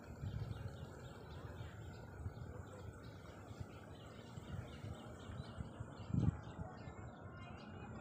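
Small birds chirping repeatedly in short quick notes over a low rumble on the microphone, which swells briefly about six seconds in.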